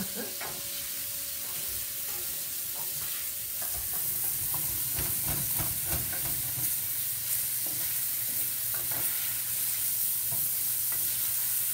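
Sliced sweet peppers and onions sizzling in oil in a stainless steel skillet, stirred with a wooden spoon that clicks and scrapes against the pan, the clicks most frequent in the middle.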